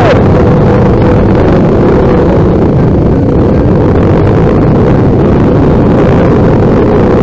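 Dirt bike engines running steadily as the group rides off, with heavy wind rumble on the microphone. Loud, with a steady engine note.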